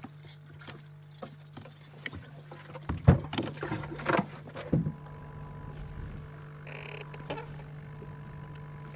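Clicks and clatter of gear being handled in an aluminium fishing boat, with several heavy knocks about three to five seconds in, over a steady low hum.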